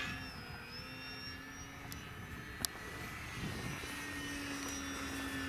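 Radio-controlled model airplane's motor and propeller whining in flight, a steady whine that wavers slightly in pitch as the plane moves. A single sharp click about two and a half seconds in.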